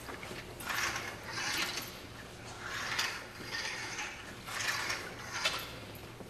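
Wet string mop swishing back and forth across a tiled floor, a series of short scrubbing strokes about every second or so.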